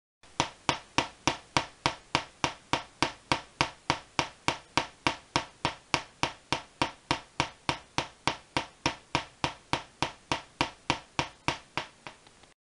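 Half-bridge solid-state Tesla coil firing short bursts with long off-times from its interrupter: a string of sharp, evenly spaced spark cracks, about three a second.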